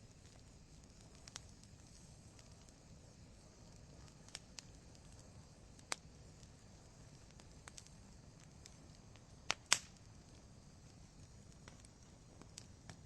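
Logs burning in a fireplace, crackling: scattered sharp pops and snaps a second or two apart, the two loudest close together about three-quarters of the way through.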